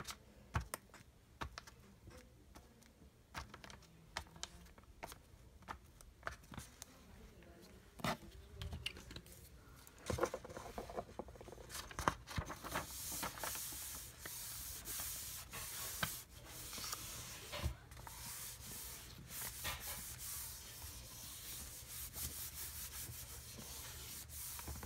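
Hands handling dot-grid journal paper pages: the pages are turned with light paper clicks and rustles, then, from about halfway, a steady hissing rub as the palm smooths and presses glued pages flat.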